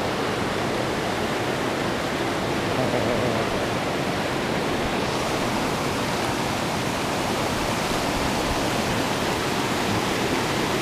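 Steady rush of a mountain creek pouring over rocks and small cascades into a pool, an even roar of running water.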